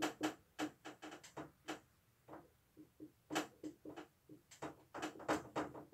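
Dry-erase marker writing on a whiteboard: a quick, irregular run of short strokes and taps, several a second, with a brief lull in the middle.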